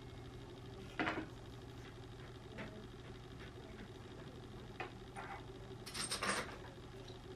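Light knocks and handling sounds from cat-tower parts (sisal-wrapped posts and a carpeted platform) being fitted together over a steady low hum. There is a single knock about a second in, a few softer ones in the middle, and a louder flurry of knocks and rubbing near the end.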